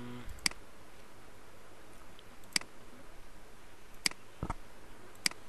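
Four computer mouse clicks, spaced a second or more apart.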